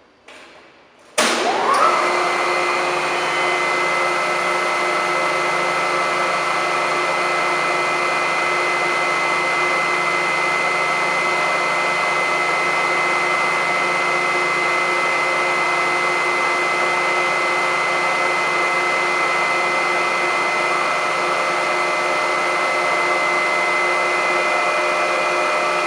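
Sullair 10-25L 25 HP rotary screw air compressor starting up about a second in, after a couple of faint clicks: a sudden loud start with a brief rising whine as it spins up, then running at a steady hum and whine.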